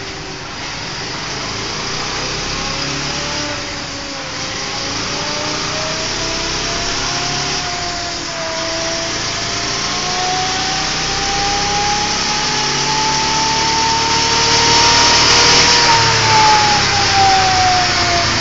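Bajaj Pulsar 220 DTS-i's single-cylinder four-stroke engine pulling under load on a chassis dynamometer. Its pitch climbs steadily for about fifteen seconds and then drops near the end, over a steady rushing noise.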